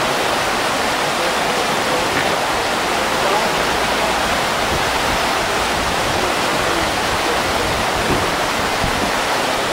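Whitewater rapids of the Brenta river slalom course rushing in a steady, unbroken wash of noise.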